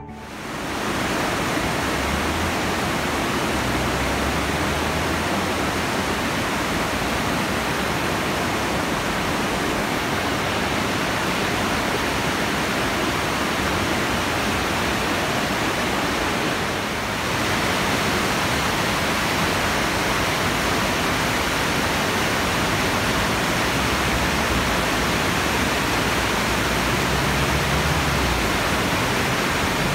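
Swollen, muddy river water rushing steadily down a concrete channel and over its low weirs, in spate after heavy rain. The rush dips briefly a little over halfway through.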